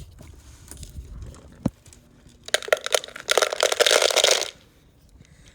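Dry dog kibble rattling out of a motor-driven automatic dog feeder for about two seconds, in two spurts, after a single click about a second and a half in.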